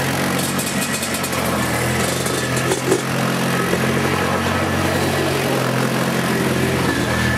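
Polaris Magnum 325 ATV's single-cylinder four-stroke engine running at a steady, moderate speed as the quad turns tight circles in thin snow. There is a short knock about three seconds in.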